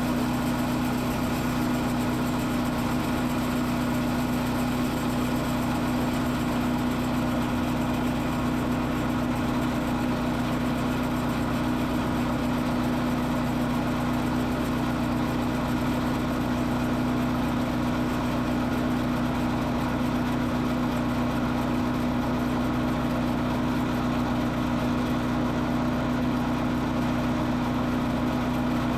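Heavy equipment engine running at a constant speed: an unchanging drone with a strong steady low hum.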